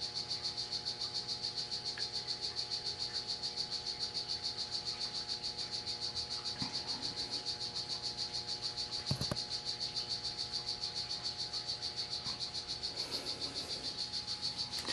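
Steady, rapid high-pitched chirping, about seven pulses a second, with a low steady hum underneath and a couple of faint knocks partway through.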